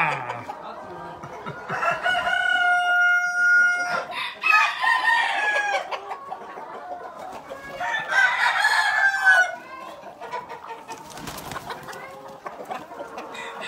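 A flock of Bielefelder chickens clucking, with roosters crowing: one long, steady crow about two seconds in, and more crows around four and eight seconds in.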